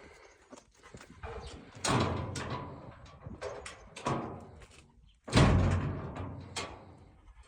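A broken gate being handled, banging and rattling: three heavy knocks about two seconds apart, the last and loudest a little after five seconds in, each ringing on briefly, with lighter clicks and rattles between.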